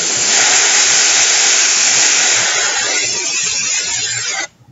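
Aerosol duster can spraying through its straw nozzle in one long, loud hiss, chilling a microcontroller board's temperature sensor. The hiss stops abruptly near the end.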